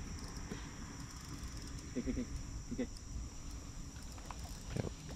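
Steady high-pitched buzzing of an insect chorus over a low background rumble, with a few faint short voice-like sounds about two, three and five seconds in.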